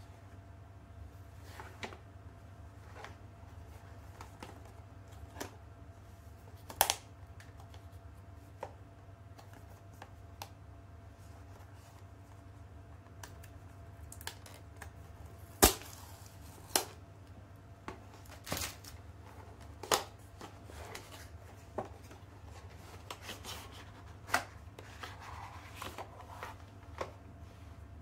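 Hands handling a cardboard Fitbit Inspire HR box and its inner tray: scattered taps and clicks as the box is turned, opened and set down, with a brief paper rustle near the end. A sharp tap about halfway through is the loudest. A steady low hum runs underneath.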